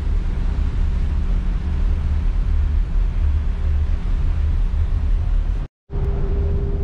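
Wind rumbling on the microphone on a moving cruise ferry's open deck, over the steady hum of the ship's machinery. The sound cuts out for a moment near the end, then carries on the same.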